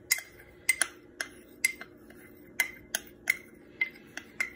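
A metal spoon clinking and tapping against a small glass bowl as cornflour is knocked out into a bowl of melted ghee: about nine sharp, ringing clinks at an uneven pace.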